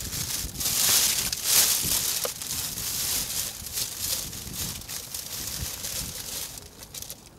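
Plastic trash bag crinkling and rustling as it is handled and its contents rummaged through, in irregular bursts that grow fainter near the end.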